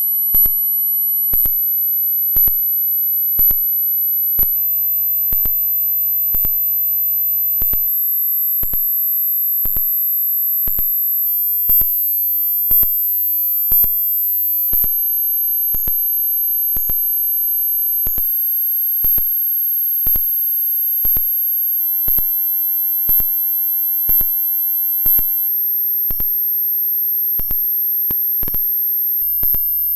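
Very high-pitched pure sine test tone of a hearing test, held steady and stepping slightly higher in pitch every few seconds. Soft regular ticks run alongside it, about one a second.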